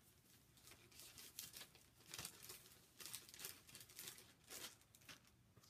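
Faint, irregular crinkling and rustling of a cross-stitch kit's project bag and chart packaging being handled.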